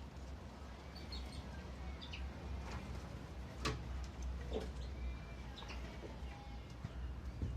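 Aviary finches chirping: scattered short, high calls, with a couple of sharp clicks near the middle and a steady low hum underneath.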